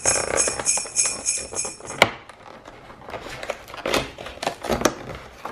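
Jingle-bell music that stops with a sharp click about two seconds in, followed by the scraping and small tearing clicks of fingers prying open a perforated cardboard advent calendar door.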